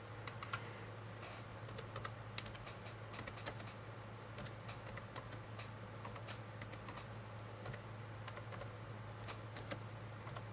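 Faint, irregular keystrokes on a laptop keyboard as a short note is typed, over a steady low hum.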